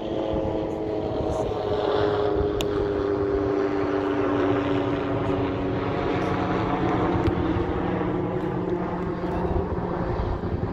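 A steady engine drone whose pitch falls slowly over several seconds, with a few sharp clicks over it.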